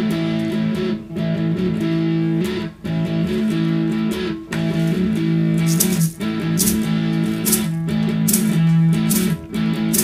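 Acoustic guitar playing the instrumental intro to a song: strummed chords in a steady rhythm, with short breaks at the chord changes. From about six seconds in, sharp high clicks join on the beat.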